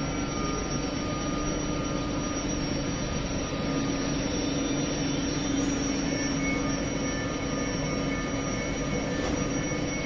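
Train moving slowly through the station beside the platform: an even rumble of wheels on the rails under a steady hum, with thin, steady high-pitched tones from the running gear or traction equipment.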